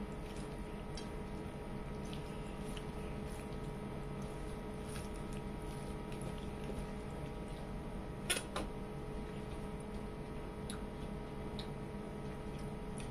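Quiet eating by hand: fingers mixing rice and curry on a plate and chewing, heard as scattered small soft clicks and wet sounds, with a sharper double click about eight seconds in, over a steady background hum.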